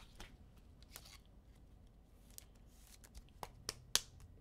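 Faint handling of trading cards: a few short, scattered clicks and light rustles. The sharpest click comes near the end.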